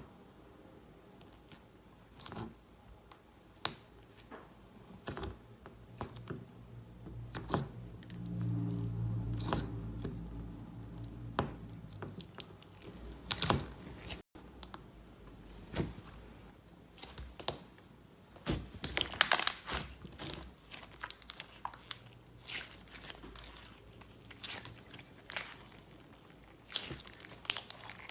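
Slime being squeezed and pressed by hand, giving irregular crackles, clicks and pops, thicker in the second half. A low hum sounds for a few seconds about eight seconds in.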